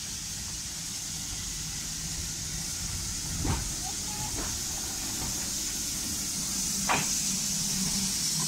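Hawthorn Leslie saddle-tank steam locomotive moving slowly past with a steady hiss of steam over a low rumble, growing louder as it nears. There are a few sharp knocks, about three and a half seconds in and again about seven seconds in.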